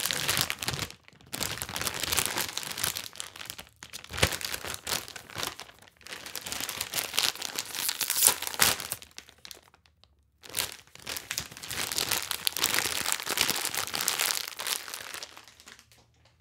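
A bag being crumpled and crinkled by hand, in several bouts of crackling separated by short pauses, fading out near the end.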